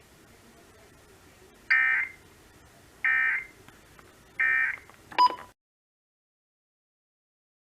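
Emergency Alert System end-of-message data tones: three identical short, buzzy bursts of digital tones, about a second and a quarter apart, marking the close of the alert. A sharp click with a brief tone follows, then the audio cuts to dead silence.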